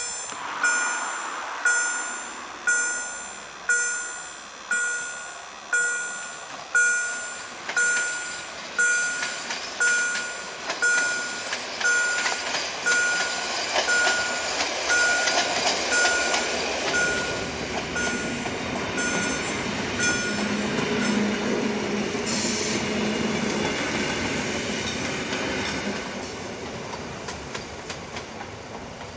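Level-crossing warning bell striking about once a second, fading out partway through, as a Polregio EN57 electric multiple unit passes over the crossing. The wheels make a growing rumble with clickety-clack on the rail joints, loudest about three-quarters through, then fading as the train moves away.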